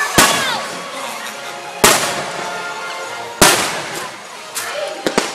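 Fireworks going off: three loud booms about a second and a half apart, each trailing off in a long rumble, then a couple of lighter pops near the end. Music plays underneath.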